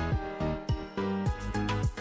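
Background music with a steady drum beat under sustained pitched instrumental notes.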